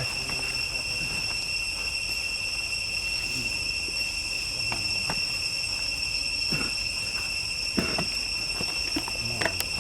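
Steady, high-pitched insect drone, likely crickets or cicadas, holding unbroken in two main pitches. A few short clicks sound over it near the end.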